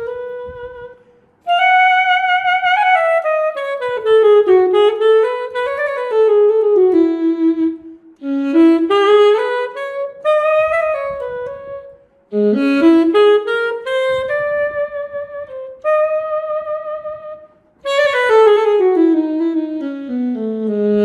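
Sampled saxophone from the VHorns virtual instrument, played from an EWI USB wind controller: a solo melody in flowing phrases of notes running up and down, with short breaks between phrases, ending on a held low note.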